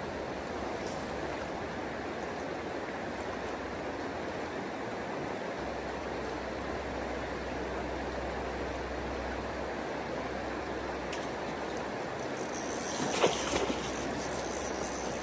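Steady rush of a flowing river, with a brief knock near the end.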